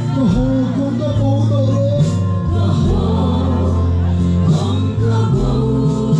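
A crowd singing a gospel worship song together over an amplified band, with sustained bass notes underneath.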